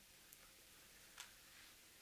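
Near silence: room tone with two faint short clicks about a second apart.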